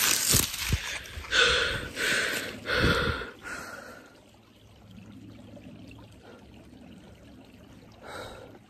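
A person breathing hard right at the microphone: a run of loud, gasping breaths over the first three seconds or so, then quieter, with one more breath near the end.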